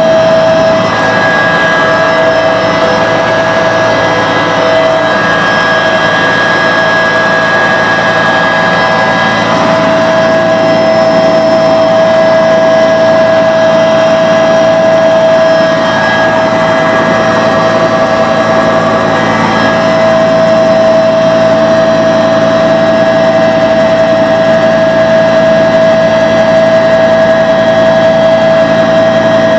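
Bell 212 twin-turbine helicopter in flight, heard from inside the cabin: a loud, steady drone with several high whining tones held throughout.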